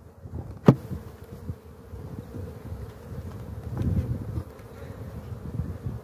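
Honeybees buzzing steadily over an open hive crowded with bees, with a single sharp knock about a second in.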